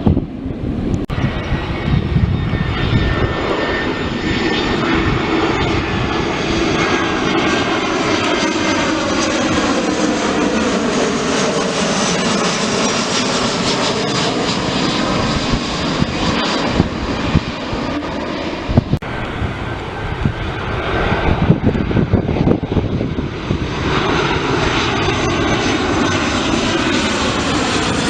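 Airliner on landing approach passing low overhead: a loud, steady engine roar whose tone sweeps down and back up as it goes over. Low wind buffeting on the microphone can be heard near the start.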